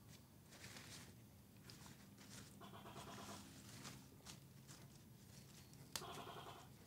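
Faint quiet night room tone with soft rustling and crackling of fresh leaves handled and folded by hand. Two short pulsed rasping animal calls sound, about two and a half seconds in and again about six seconds in, the second starting with a sharp click.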